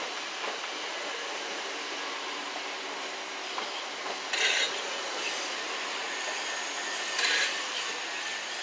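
Southeastern Class 375 Electrostar electric train running away along the platform: steady noise of wheels on the rails, with two brief, louder high-pitched bursts about three seconds apart.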